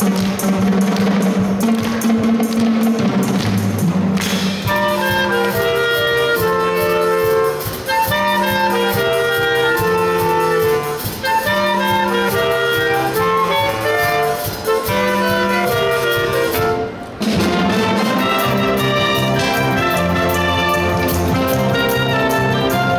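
A high school wind band playing a Eurobeat arrangement of a Disney medley: saxophones, clarinets, flutes and brass over drum kit and a pulsing bass line. It opens drum-heavy, the melody enters about four seconds in, and there is a brief break about seventeen seconds in before the full band comes back.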